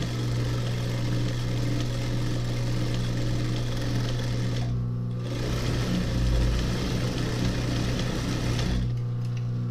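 Industrial sewing machine stitching back and forth over worn denim to darn it, in two long runs with a short pause about five seconds in. The machine's motor hums steadily underneath and keeps humming after the stitching stops near the end.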